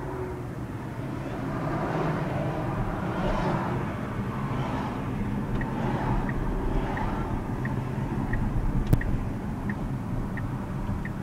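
Inside the cabin of a moving Tesla Model S Performance: steady low road and tyre noise with no engine sound. From about five seconds in, a turn-signal indicator ticks evenly, roughly three ticks every two seconds, and there is one sharp click near the end.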